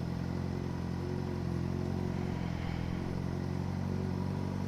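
Yamaha XJ6's inline-four engine running steadily at low revs in slow traffic, with an even, unchanging note. The engine is hot, at about 100 °C.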